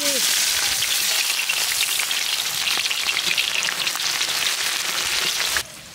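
Chopped onions dropped into hot oil in a large iron karahi, frying with a loud sizzle and crackle as a metal spatula stirs them. The sizzle stops suddenly near the end.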